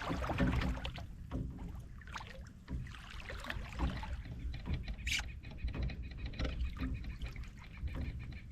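Water splashing and trickling against a fishing kayak, with scattered knocks and a steady low rumble, one sharper splash or knock about five seconds in.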